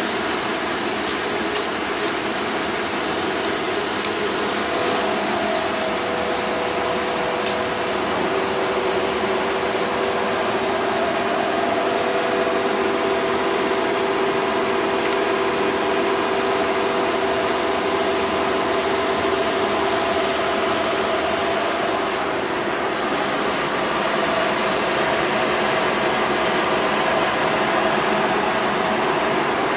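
Bullard Cutmaster 42 vertical turret lathe running: a steady mechanical hum with gear-whine tones that change pitch a few seconds in. A few light clicks come in the first seconds.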